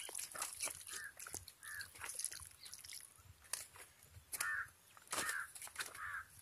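Crows cawing, about five short caws spread across a few seconds, over wet squelching clicks from a hand mixing and scooping masala-coated chicken.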